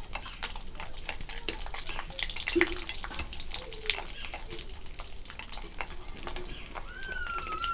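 Turmeric pieces frying in hot mustard oil in a kadhai, sizzling with many small crackles as they puff up, while a steel ladle stirs them.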